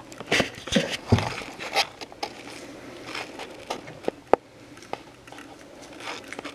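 Nitrile-gloved hands rubbing and scrubbing a resin 3D print in a plastic tub while washing off the uncured resin: irregular crackly rubbing and scraping, with a few sharp clicks about four seconds in.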